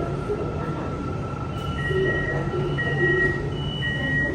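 Door-closing warning beeps on a Hyundai Rotem Putrajaya Line metro train: a repeating high two-tone beep starts about one and a half seconds in, over the train's steady hum.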